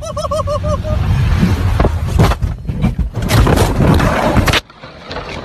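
A person's rapid, wavering yell, then a car crash: loud rumbling and scraping with several hard bangs as the car tumbles, cut off suddenly near the end.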